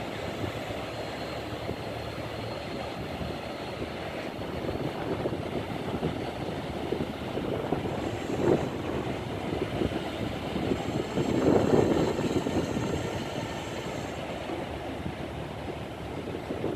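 A 42.3 m catamaran's engines running under way, with the churn of its stern wash: a steady rumble that swells briefly about halfway through and more strongly a few seconds later.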